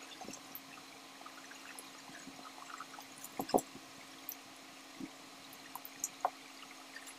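Wet eating sounds of lansones being peeled by hand and chewed: a scatter of short smacks and clicks, the loudest a pair about three and a half seconds in.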